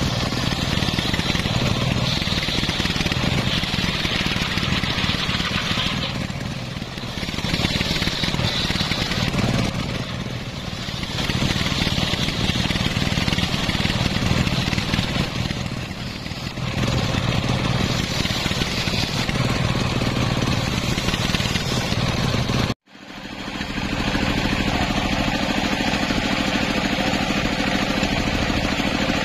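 Homemade belt-driven circular saw bench ripping logs lengthwise: the machine runs loud with the hissing rasp of the blade in the wood, easing briefly between passes about every five seconds. After a sudden break about 23 s in, the saw runs free with a steady hum.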